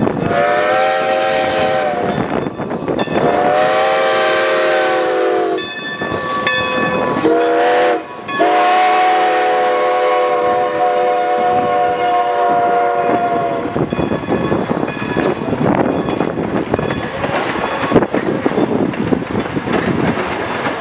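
Steam locomotive's chime whistle blowing several tones at once in the pattern long, long, short, long, the standard grade-crossing signal. After that, passenger car wheels rumble and clack over the rail joints as the coaches roll by.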